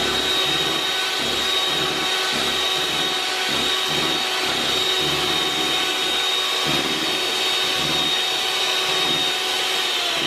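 Hamilton Beach electric hand mixer running steadily, its beaters whipping instant coffee, sugar and hot water into a thick, meringue-like foam (dalgona whipped coffee). A steady high motor whine over an uneven low throbbing.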